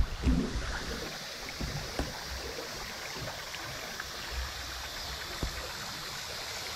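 Steady rush of shallow river water, with a few light knocks.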